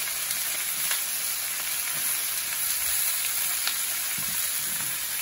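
Ribeye steak and vegetables sizzling in a hot cast iron pan: a steady high hiss with a few faint crackles.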